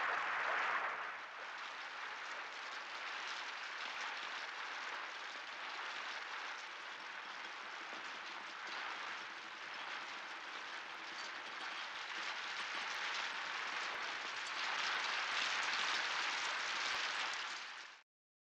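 Rain falling steadily, a dense even hiss of drops on the garden and a table set with china cups. It is louder for the first second, eases, swells again near the end, then cuts off suddenly.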